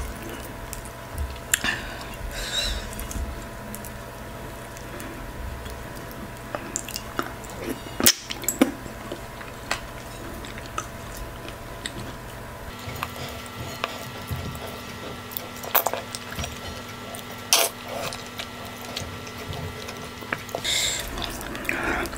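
Close-miked eating of fufu with okra stew by hand: scattered wet mouth clicks and smacks while chewing, over a steady background hum.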